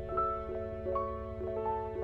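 Soft instrumental music: a steady run of single melody notes over held low bass notes.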